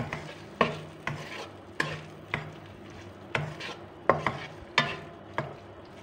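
Spatula stirring meat and spice paste in a non-stick frying pan: irregular sharp taps and scrapes against the pan, about two a second, with frying underneath.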